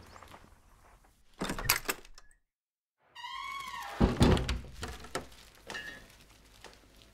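Wooden door swinging with a falling hinge squeal, then shutting with a heavy thunk about four seconds in. Before it comes a short rattle, and a second of dead silence at the cut.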